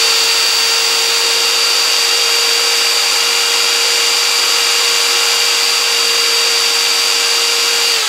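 Electric drill spinning a universal motor that is wired as a self-excited generator, running at a steady speed with a steady motor whine.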